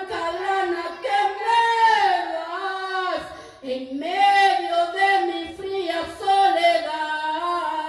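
A woman singing a Spanish-language worship song solo into a handheld microphone, holding long notes that bend in pitch, with a short break between phrases about three seconds in.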